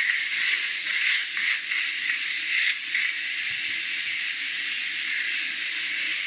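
Steady high-pitched hiss, with a few faint taps and handling sounds.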